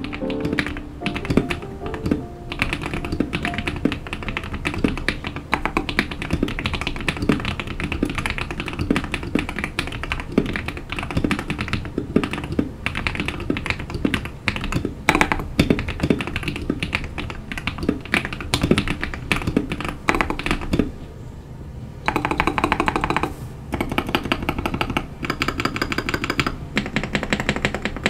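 Fast continuous typing on a Royal Kludge RK100 mechanical keyboard fitted with modded KTT Kang White linear switches and its stock double-shot PBT keycaps, a clacky sound. Keystrokes run dense and quick, with a short lull about three-quarters of the way through before rapid, evenly spaced presses resume.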